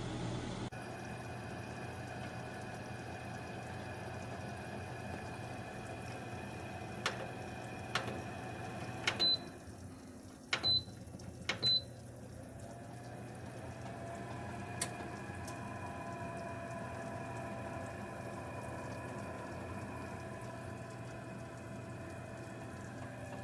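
Countertop air fryer toaster oven running with a steady fan hum. A few sharp clicks come in the middle, three of them with short high beeps about a second apart, as from its control panel.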